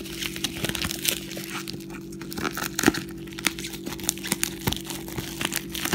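Bubble wrap and plastic packaging crinkling and crackling in the hands, a dense run of small crackles, over a steady low hum.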